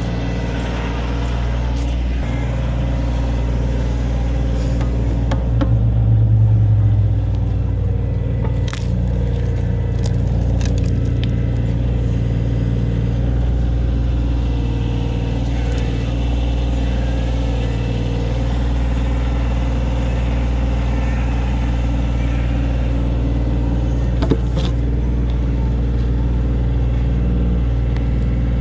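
Backhoe engine running steadily while digging a trench, working harder for a moment about six seconds in, with a couple of sharp knocks.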